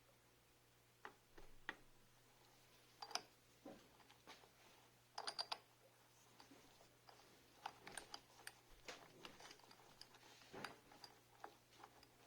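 Faint, irregular light clicks and knocks of small hard objects being handled, with a quick cluster of clicks about five seconds in, over a faint steady low hum.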